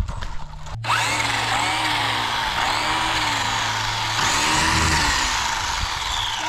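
WLtoys 144001 1/14-scale electric RC buggy's motor and drivetrain whining, starting suddenly about a second in and rising and falling in pitch several times as the car speeds up and slows, over a steady hiss.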